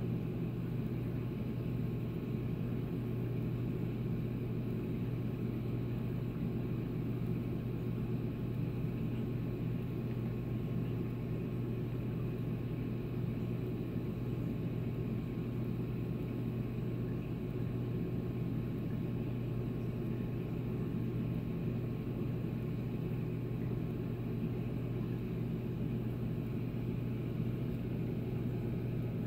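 Steady low hum of reef-aquarium pumps running, unchanging in pitch and level.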